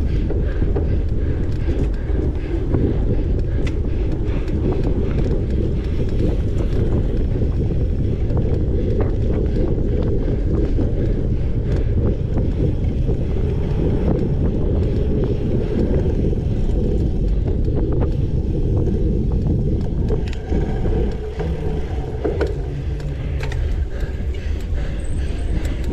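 Wind buffeting the microphone of a camera on a cyclocross bike ridden fast over a dirt course, with scattered clicks and rattles from the bike over rough ground. The rumble eases slightly about twenty seconds in.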